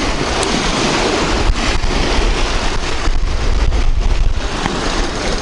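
Wind buffeting the microphone: a steady rushing noise with a deep rumble underneath.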